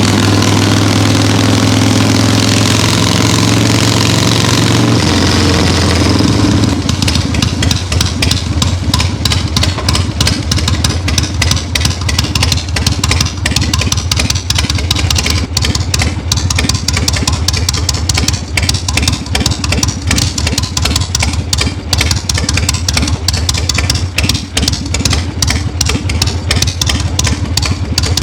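Harley-Davidson Shovelhead V-twin running through a new shotgun exhaust. It holds a steadier, higher note for the first six seconds or so, then drops to an idle of loud, separate exhaust thuds. The owner reckons the open pipes lose back pressure and will need baffles.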